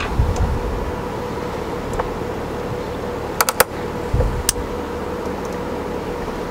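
A few sharp metallic clicks from locking flex-head ratchets being handled and worked apart by hand, three of them in quick succession about halfway through, over a steady background hum.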